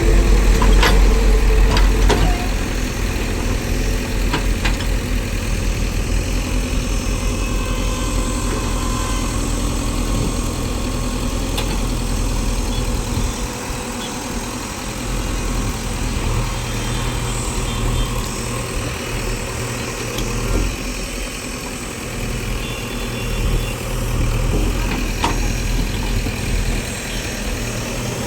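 Heavy diesel engine running steadily at low revs, louder for the first two seconds, with a few light knocks.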